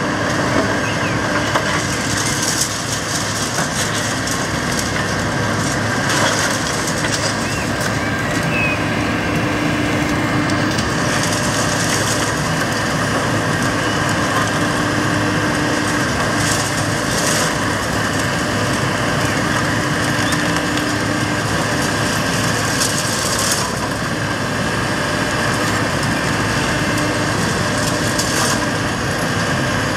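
Takeuchi TB2150R compact excavator running steadily under hydraulic load while its hydraulic pulverizer jaw crushes concrete rubble, with sharp cracks and crunches at irregular intervals.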